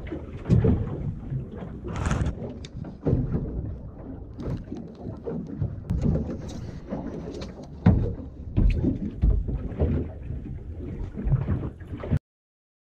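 Low rumbling, like wind on the microphone, with irregular thumps and knocks from hands handling fishing line, reel and jig on a small boat. The sound cuts off near the end.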